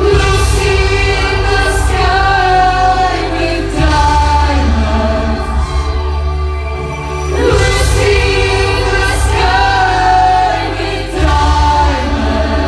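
Music with sung, choir-like voices over a deep, sustained bass that changes every few seconds.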